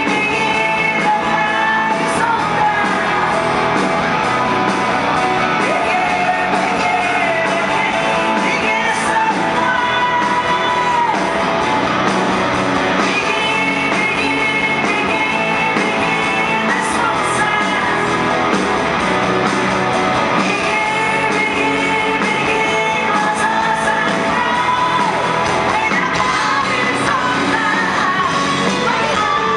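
Live pop-rock band: a woman singing powerfully into a microphone over keyboard, electric guitars and drums, amplified in a large concert hall.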